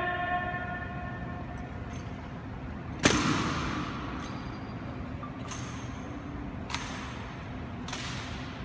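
Sharp clacks from a rifle drill in a marble hall: one loud knock about three seconds in, then lighter clacks roughly every second or so, each followed by an echo.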